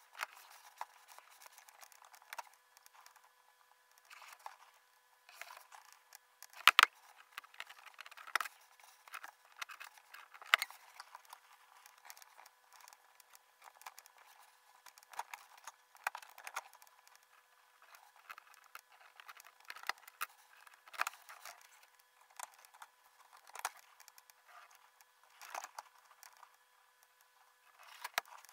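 Metal laparoscopic instruments, a needle holder and a grasper, clicking and scraping as they handle the needle and suture during intracorporeal suturing, played back at five times speed. The clicks come quickly and irregularly, the sharpest about seven seconds in and again a few seconds later.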